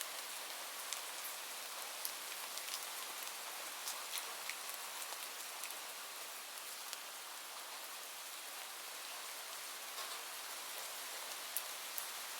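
Steady rain falling, a continuous hiss with scattered sharper drop ticks on nearby surfaces.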